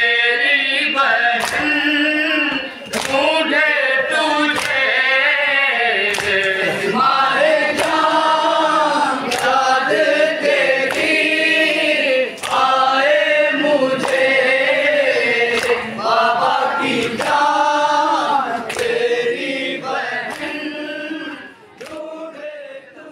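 A noha, a Muharram mourning lament, chanted by a young reciter with a group of male mourners singing along, and sharp hand-on-chest matam strikes keeping a steady beat about every three-quarters of a second. It fades out near the end.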